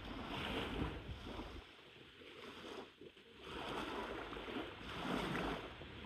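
Small lake waves washing onto a gravel shore, the rush of water swelling and fading in repeated surges.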